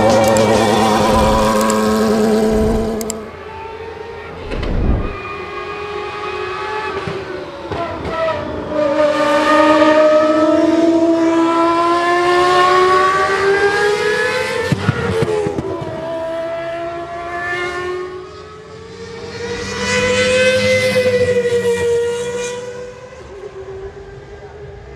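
A late-1990s McLaren-Mercedes Formula 1 car's V10 engine at high revs, its pitch climbing through each gear and dropping sharply at the upshifts, then fading near the end as the car pulls away.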